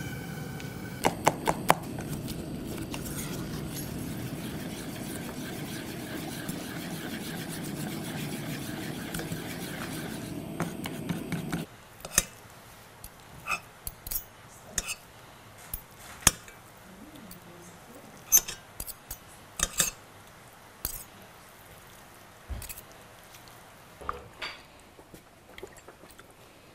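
Gas torch on a hose running steadily as it singes the skin of a plucked chicken; about 12 seconds in it stops abruptly. Then scattered clicks and clinks of a fork against a metal pot of shredded boiled chicken.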